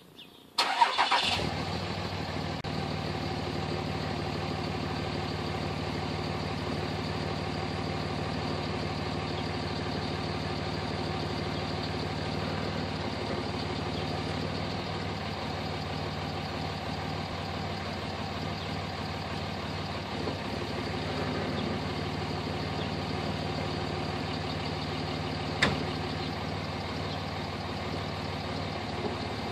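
Pickup truck engine starting about half a second in, then idling steadily. A single sharp knock stands out near the end.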